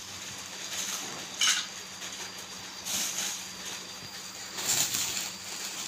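Plastic bubble wrap rustling and crinkling as it is pressed and folded by hand, with a few short, sharper crackles, the clearest about one and a half seconds in.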